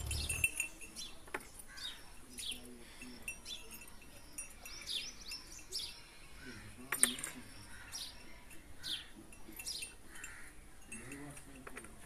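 Small birds chirping over and over in short, quick falling chirps, with one sharp click about seven seconds in.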